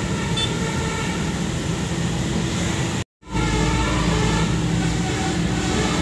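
Tour bus telolet horn, a multi-tone musical air horn, sounding a run of shifting notes over engine and road noise. The sound cuts out completely for an instant about three seconds in, then comes back louder.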